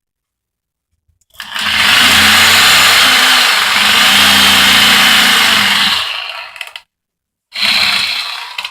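Harbor Freight Chicago Electric corded reciprocating saw running as it cuts into a pumpkin. It comes on about a second in, runs for about five seconds and winds down, then gives a second short burst near the end.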